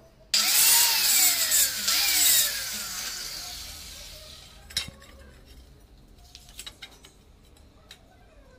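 Electric angle grinder cutting a ceramic wall tile: the motor's pitch sags under load twice, then the sound fades as the disc spins down. A sharp knock follows about five seconds in, then light clicks as tiles are handled and set against the wall.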